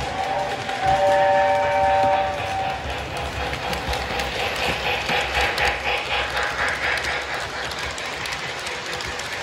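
Lionel LionChief Hogwarts Express toy steam locomotive's built-in sound effects: a chime steam whistle blows and stops about three seconds in, then steam chuffing in a quick rhythm over the rumble of the train running on track.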